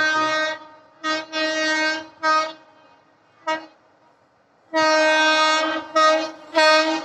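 Electric train horn sounding a series of short and long blasts on one steady note, with a pause of about a second and a half midway; the longest blast comes about five seconds in.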